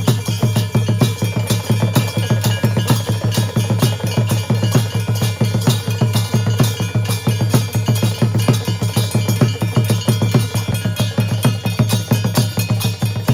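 Puja drums beaten in a fast, even rhythm, with metal bells ringing steadily over them.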